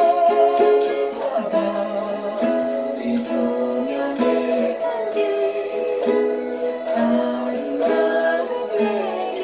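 Ukulele strummed in a slow-rock stroke pattern, playing chords under a sustained melody line.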